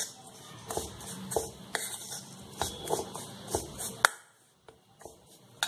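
Metal spatula scraping and knocking against a stainless steel bowl while stirring a crumbly coconut and sugar mixture, a few uneven strokes a second. The stirring stops about four seconds in with a sharp clink, and there is one more clink near the end.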